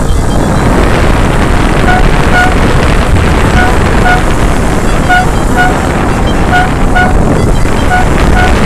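Wind buffeting the microphone on a moving moped, over the running of small autocycle and moped engines. From about two seconds in, a horn toots in quick pairs, a pair roughly every second and a half.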